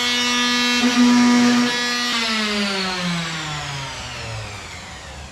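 Small handheld power tool motor running with a steady high whine while it works on aluminium, briefly louder about a second in. About two seconds in it is switched off and spins down, its pitch falling as it fades.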